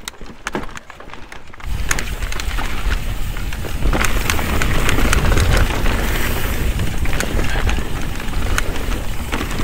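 A few scattered clicks, then, about a second and a half in, a mountain bike riding down dirt singletrack takes over. Its tyres rumble and crackle over dirt and leaves, the bike rattles, and there is heavy wind rumble on the microphone.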